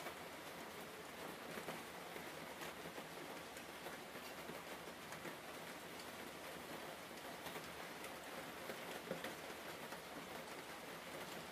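Steady soft rain-like hiss with faint scattered ticks.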